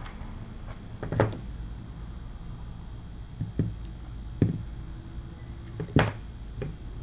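Scattered light clicks and knocks of small tools and phone parts being handled on a work surface during a screen repair, five or so taps a second or more apart, over a steady low hum.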